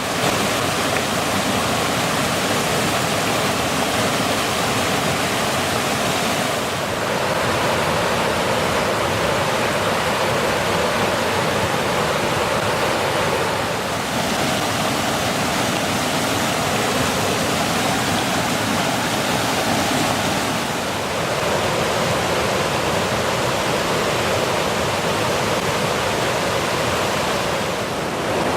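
Rushing water of a small multi-tiered river cascade, a steady dense roar with brief small dips in level about every seven seconds.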